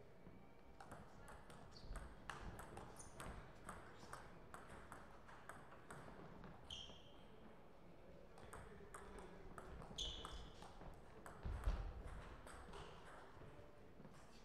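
Celluloid-type plastic table tennis ball clicking off bats and the table in two rallies, a quick run of clicks in the first few seconds and another from a little past halfway. A couple of short high squeaks and one low thump, the loudest moment, come during the second rally.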